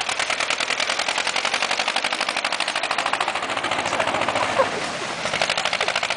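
Ursus tractor's diesel engine running with a rapid, even clatter of exhaust beats, about a dozen a second. It eases off briefly about four seconds in, with one sharp knock, then picks up again.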